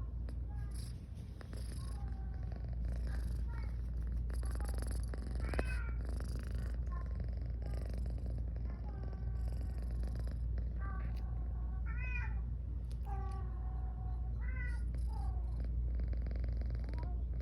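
Domestic cat purring close to the microphone, a steady low rumble, with frequent short high chirping calls over it.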